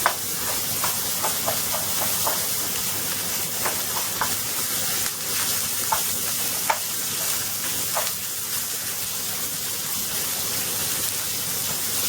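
Cumin seeds, asafoetida, ginger and garlic sizzling as they roast in a pan: a steady hiss with about ten small, sharp crackles scattered through it.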